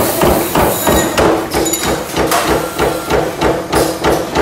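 Automatic hot forging press stamping induction-heated steel bar stock, a rapid, even run of metal impacts at about three a second, with a steady machine hum underneath.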